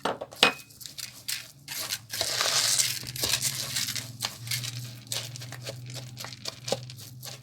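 Kitchen handling noise while salt and ground cinnamon are measured out: crinkling and rustling with many small clicks, a sharp click just under half a second in, and a louder rustle about two seconds in that lasts about a second.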